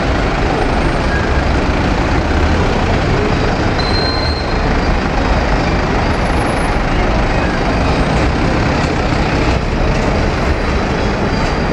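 Busy street traffic close by: car and truck engines running amid a steady, loud rumble of road noise.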